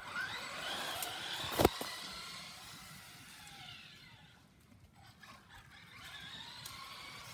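Traxxas radio-controlled truck's electric motor whining, rising and falling in pitch as it speeds up and slows, fading out in the middle and coming back near the end. A single sharp knock about one and a half seconds in.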